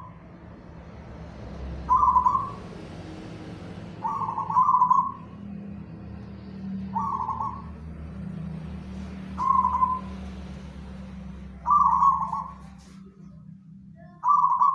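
A caged zebra dove (perkutut) cooing: six short coo phrases about every two and a half seconds, over a steady low hum.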